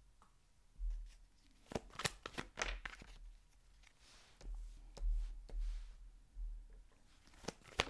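A deck of tarot cards being shuffled by hand: a quick cluster of sharp card clicks and rustles, then soft thumps of handling and a card put down on the table near the end.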